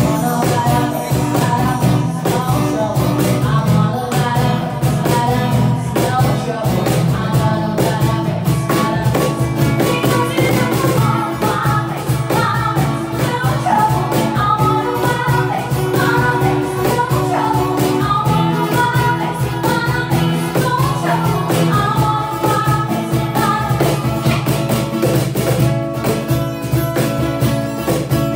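Live acoustic band: a woman singing through a microphone, accompanied by strummed acoustic guitar and a steady cajon beat.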